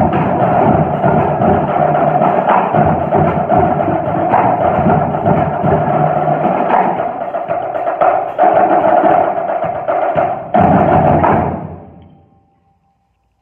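A high school drum line of marching drums, with a drum kit, playing a dense percussion groove together. A last loud stretch of hits comes about ten and a half seconds in, then the drums ring out and die away.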